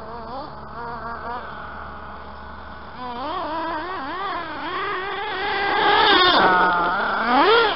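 Reely Rex RC buggy's big-block nitro engine, a small two-stroke glow engine, revving up and down as the throttle is worked: a high whine that keeps rising and falling in pitch. It grows louder partway through, is loudest a little past the middle, and ends with a quick rising rev.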